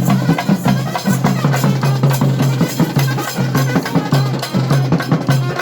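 Fast, rhythmic drumming over a steady low droning tone: the festival music that accompanies kavadi dancers.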